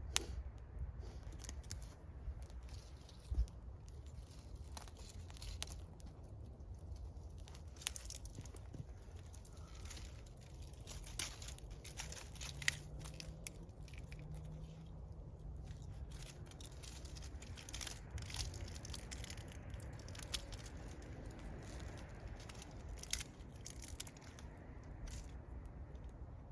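Wood fire crackling: irregular sharp snaps and pops over a low, steady rumble.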